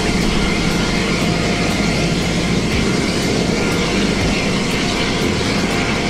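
F-16 Fighting Falcon jet engines running at taxi power: a steady, loud rush with a thin constant whine.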